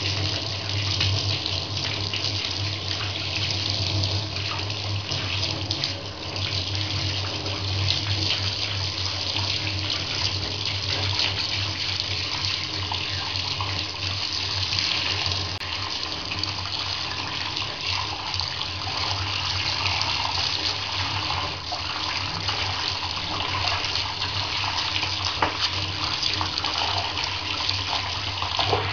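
Bath tap running into a filling bathtub: a steady rush of water splashing onto a hand that holds a bubble bar under the stream and into the water below.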